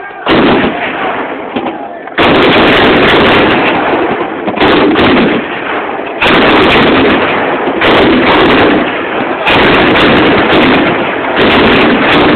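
A battery of artillery guns firing one shot after another, a loud blast about every two seconds with each report running on into the next, so loud that the recording overloads.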